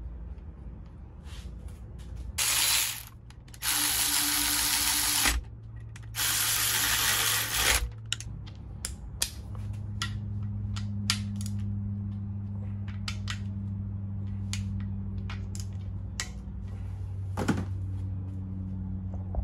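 Cordless power tool running bolts in on the front of a Honda engine in three bursts of one to two seconds each, followed by scattered light metallic clicks and taps over a steady low hum.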